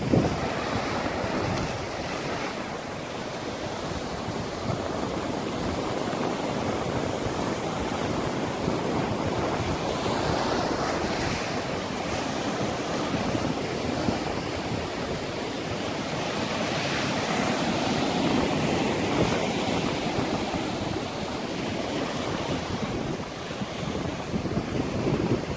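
Ocean surf breaking and washing over rocks, a steady rush that swells and eases, with wind buffeting the microphone.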